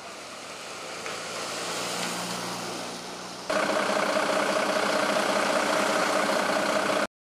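A car drives past, its engine and tyre noise swelling and fading, then a louder engine runs steadily with a constant drone.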